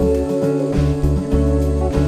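Instrumental background music with guitar, its notes changing every fraction of a second.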